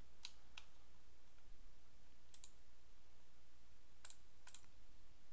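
Computer mouse clicking: three pairs of short, sharp clicks at the start, about two and a half seconds in and about four seconds in, over a faint steady low hum.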